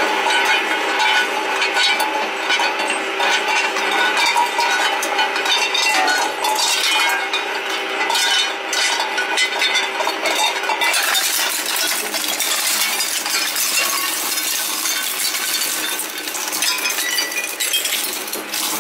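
Dual-shaft shredder running with a steady motor hum while its blades knock, clink and crunch brittle white shell pieces. The crunching turns denser and harsher about eleven seconds in, as the pieces are drawn in and broken up.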